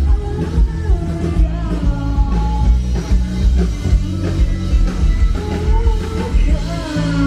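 Loud live band music with a singer's voice carried over heavy, sustained bass.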